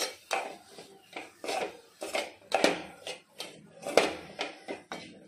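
A metal spoon scraping and knocking against a pan in an irregular series of strokes, as a thick jaggery, chana dal and coconut filling is stirred and sautéed.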